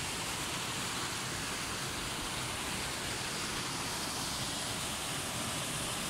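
Waterfall pouring: a steady, unbroken rush of falling water.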